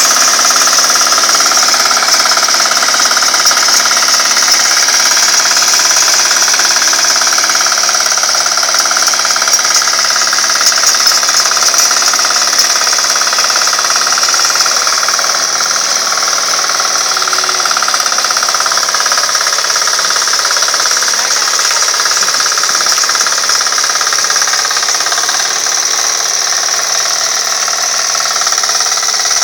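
Hand tractor's small single-cylinder engine running steadily under load with a fast, hard knocking beat as its rotary tiller churns through stubble-covered soil. It grows a little fainter toward the end.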